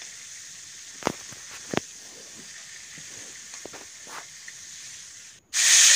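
A metal spatula clinks against a steel bowl and an iron karahi as fried cauliflower florets are lifted out of the oil. There are two sharp clinks about a second in and a few lighter taps after, over a faint hiss of oil. Near the end a much louder sizzle of frying cuts in suddenly.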